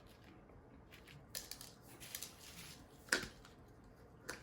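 A few light clicks and taps from a bag of 7/16-inch steel slingshot shot being handled, with a sharper click that rings briefly about three seconds in and another near the end.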